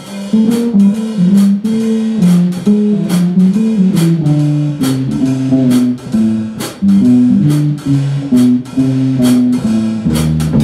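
Live jazz combo playing an instrumental passage: a plucked single-note solo line in the low-middle register, from the electric bass or guitar, over a drum kit keeping steady time with sharp beats about twice a second.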